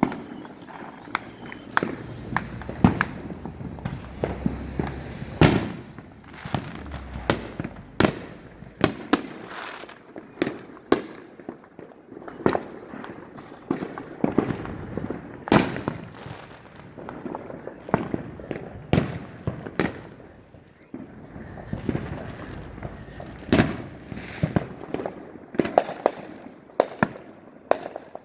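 Neighbourhood consumer fireworks and firecrackers going off all around: a continual run of sharp bangs and pops at irregular intervals, some loud and close, others fainter and farther off, over a low rumble of distant explosions.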